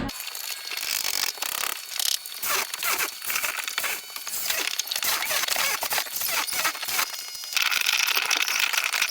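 Flood-damaged building materials being torn out and scraped: irregular crunching, crackling and tearing with many small clicks, turning to a denser scraping hiss near the end.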